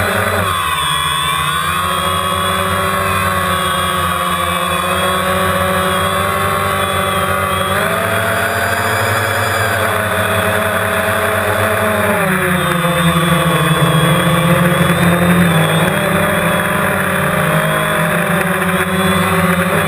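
Quadcopter drone's electric motors and propellers whining steadily, picked up by the camera mounted on the drone. The pitch shifts with throttle as it lifts off and climbs, stepping up or down a couple of times.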